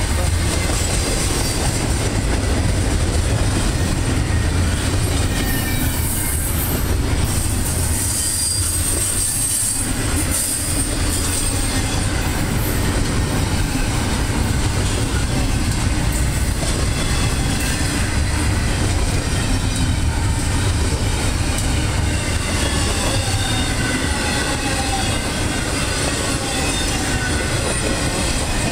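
Double-stack intermodal freight cars rolling past with a steady rumble of wheels on rail. Thin wheel squeals rise and fall over it, more of them in the second half.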